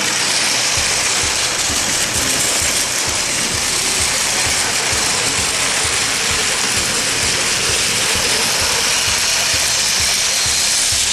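Plarail toy train's small electric motor and plastic gearbox running, a loud, steady whirr with gear rattle that does not let up.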